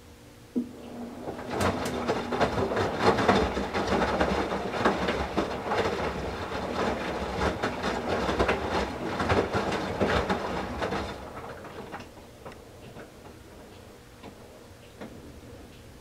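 Whirlpool Duet WFW97HEDC front-loading washer tumbling a load of towels in rinse water during the first rinse: wet towels sloshing and splashing in the turning drum. It starts with a click about half a second in and dies away after about eleven seconds, when the drum pauses.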